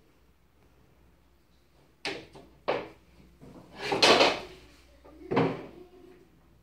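Laminated wooden bed-frame boards being handled: four bumps and scrapes of board against board, the longest and loudest a scrape about four seconds in.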